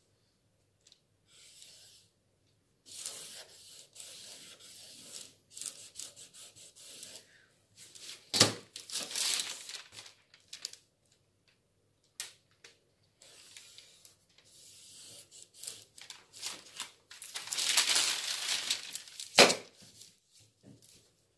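A large sheet of pattern paper rustling and crinkling as it is handled and a metal ruler is slid and moved across it, in stretches of a few seconds, loudest near the end. There are two sharp knocks, one a little over eight seconds in and one near the end.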